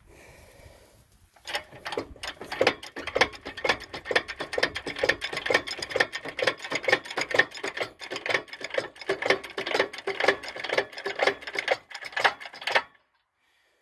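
Homemade crane's lifting mechanism being worked to raise a dryer, making a rapid, even run of metallic clicks that cuts off suddenly near the end.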